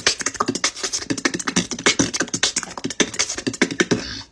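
Rapid vocal beatboxing: a dense run of sharp percussive mouth clicks and hits, several a second, cutting off abruptly near the end.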